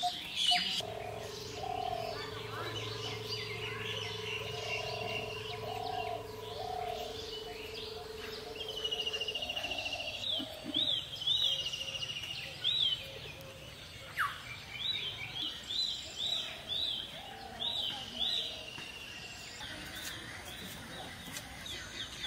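Several birds chirping and calling, with runs of quick high notes and a short trill about ten seconds in, over lower repeated calls. A steady low hum runs underneath during the first half.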